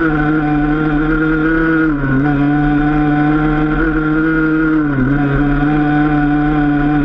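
Enduro dirt bike engine running steadily under way, its revs dipping briefly twice, about two and five seconds in.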